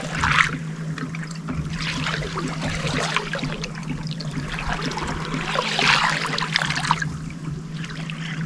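Lake water splashing and lapping against the side of a fishing boat, swelling three times, over a steady low hum.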